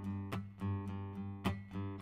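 Background music: an acoustic guitar strumming chords, with a sharp strum roughly once a second.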